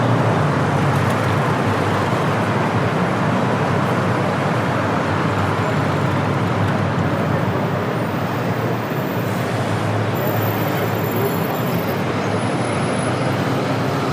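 Steady city street traffic noise, a continuous wash of passing road vehicles.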